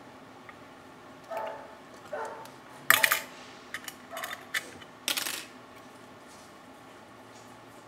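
Sharp metallic clinks and clatters of small tools handled on the workbench during soldering work. The loudest comes about three seconds in, with more around four and five seconds, and a couple of fainter short sounds come before them.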